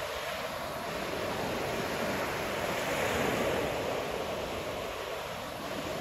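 Ocean surf breaking and washing up the beach: a steady rush that swells to a peak about halfway through and eases near the end.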